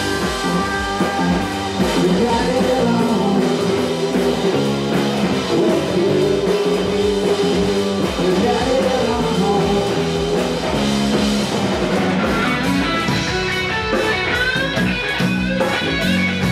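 Rock band playing live: electric guitar, bass and drums, with a singing voice coming through more clearly near the end.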